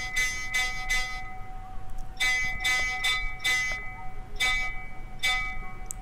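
Temple bells being struck repeatedly in quick runs of three to five strokes, about three a second, with short pauses between runs. The strikes sit over a steady ringing of the bells' overlapping tones.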